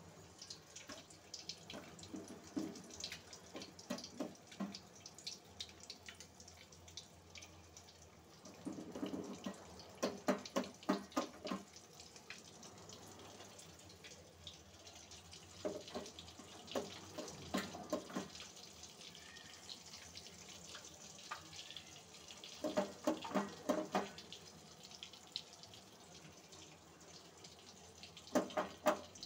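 Boiled eggs coated in a pepper-chilli powder frying in hot oil in an aluminium kadai: a steady sizzle, with a burst of crackling and spattering each time another egg goes in, four times. The sizzle is the sign that the oil is hot enough.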